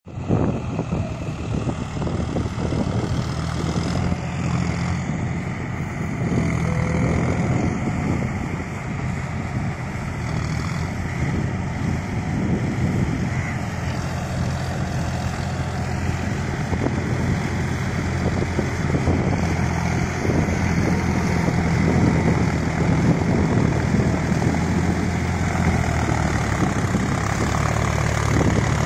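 A John Deere 4WD tractor's diesel engine running steadily under full load as it pulls a rotavator through flooded paddy mud. It grows louder as the tractor comes closer in the last several seconds.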